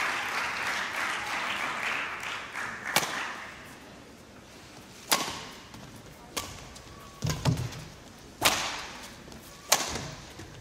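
Badminton rally: crowd noise fades over the first couple of seconds, then sharp racket strikes on the shuttlecock, about five of them a second or two apart, starting with the serve about three seconds in. A few low thuds of the players' footwork come between the strikes.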